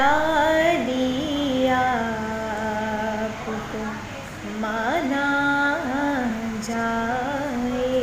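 A woman singing an Urdu devotional kalam solo, without accompaniment, in long held notes with ornamented glides between them and a short pause for breath about halfway through.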